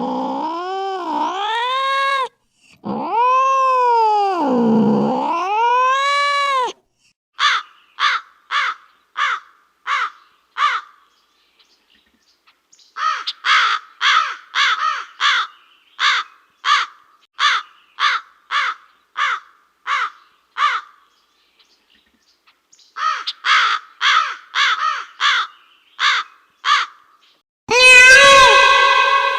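A cat's drawn-out yowl, rising and falling in pitch, for the first several seconds. Then three runs of short, clipped animal calls, about two a second, with brief pauses between the runs. Near the end a loud new drawn-out animal call begins.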